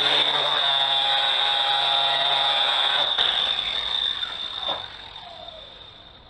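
Angle grinder fitted with a coarse Scotch-Brite disc running against the steel hammer head, a steady high whine. About three seconds in the low hum drops out, and from about four seconds the grinder winds down and fades.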